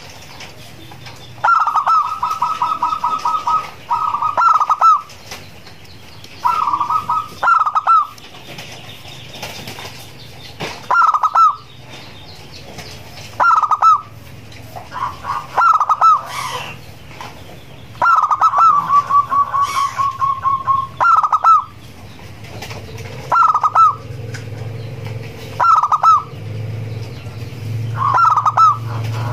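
Zebra dove (perkutut) singing: repeated phrases of staccato cooing notes, some opening with a quick rolled run, with short pauses between them.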